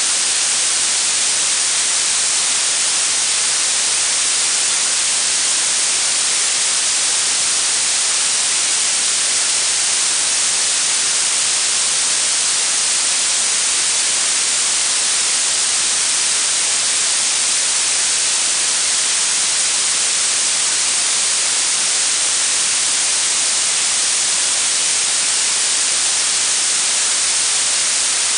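Blue noise: a steady, even hiss with its energy weighted toward the highest pitches and thinning out in the low end, unchanging throughout.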